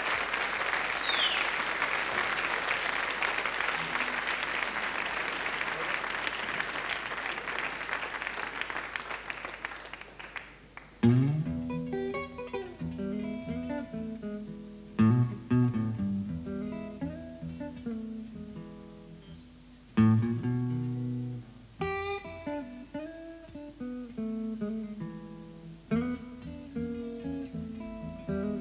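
Audience applause fading out over about ten seconds, then an acoustic guitar starts a blues introduction, picked and strummed, with hard-struck bass notes and chords.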